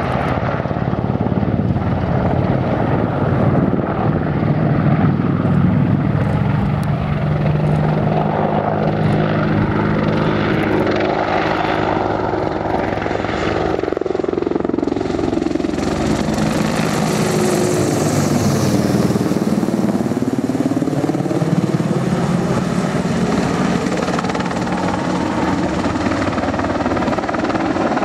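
AH-64 Apache attack helicopter flying a display: steady rotor and engine noise. About halfway through its pitch dips as it passes, then climbs again toward the end.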